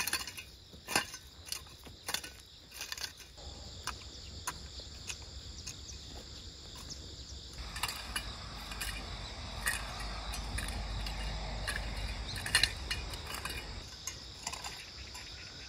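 Long-handled hoe scraping and knocking through dry, stony soil in irregular strokes, over a steady high chirring of insects; a low rumble comes in about halfway.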